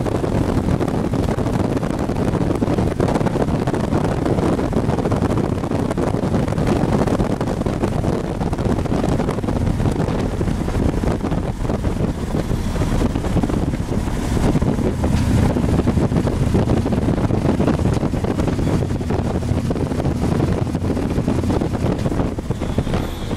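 Wind rushing over the microphone on a touring motorcycle riding at road speed, with the engine and tyre noise running steadily underneath.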